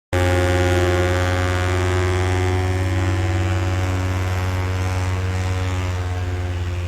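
A loud, steady low drone with many overtones, starting suddenly just after the start and holding one pitch, like an aircraft or engine hum.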